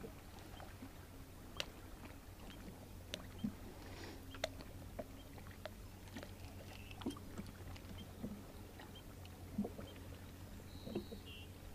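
Quiet ambience aboard a small fishing boat: a faint, steady low hum with scattered light clicks and taps, and a brief high tone near the end.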